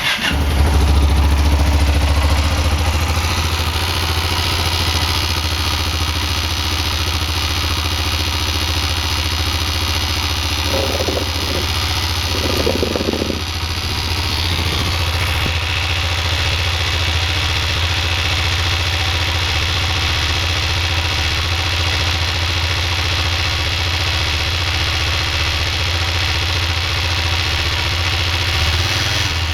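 Yamaha XT660's single-cylinder engine starting up very cold and settling into a steady idle, with a noise that the owner attributes to the oil pump when the engine is very cold.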